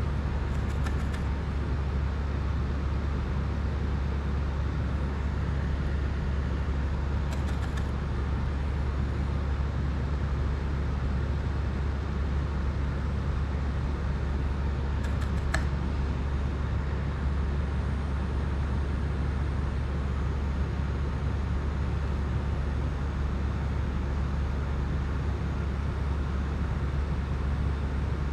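Steady low rumble with a hiss, unchanging throughout, with three faint short ticks.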